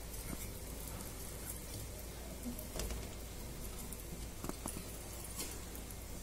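Faint, quiet simmering of masala gravy in an aluminium pot, with a few soft clicks and taps as boiled eggs are set into it.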